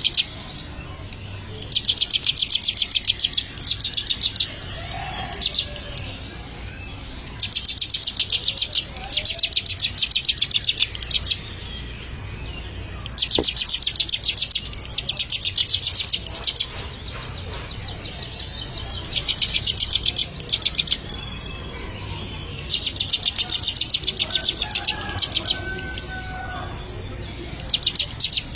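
Ciblek (prinia) song: bouts of a rapid, even, high-pitched trill of chips, each lasting one to two seconds and repeated every few seconds.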